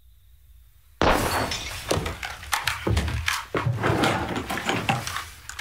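Home-brewed beer bottles bursting one after another in a rapid, irregular string of loud pops and bangs that sound like gunshots. The string starts suddenly about a second in and runs for about four seconds.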